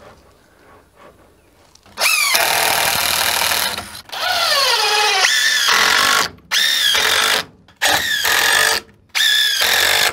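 Power drill running in five bursts of about one to two seconds each, starting about two seconds in; in each burst the motor's pitch falls as it comes under load.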